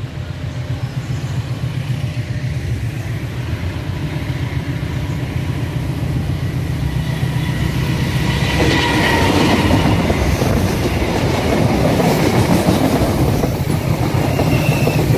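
Intercity passenger train with executive-class coaches approaching and passing close by: a steady low rumble that builds louder, then a loud clatter of wheels on rail from about eight seconds in, with a faint high wheel squeal.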